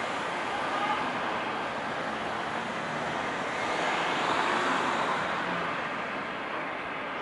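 Road traffic noise: a steady hiss that swells about four seconds in and eases off again.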